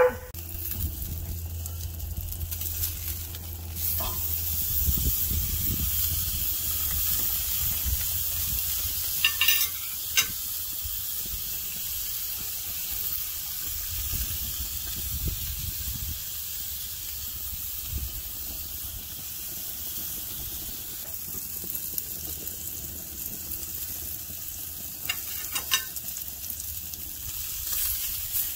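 Steak sizzling on the grates of a gas grill: a steady crackling hiss, with a few sharp clicks scattered through it.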